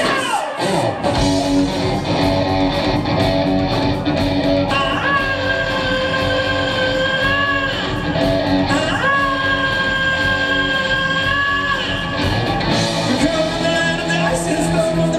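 Live rock band playing: a male lead singer sings over electric guitar, bass and drums, with two long held notes in the middle.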